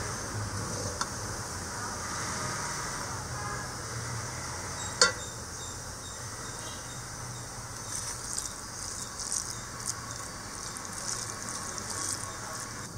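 Steady low background hiss, with one sharp click about five seconds in and light, scattered crackling in the last few seconds.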